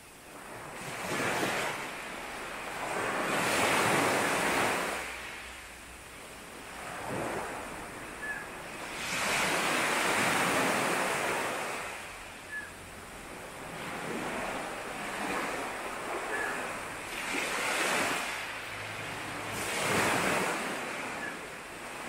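Sea waves breaking and washing on a beach, the rush swelling and fading every few seconds. A few faint, short bird chirps come through between the surges.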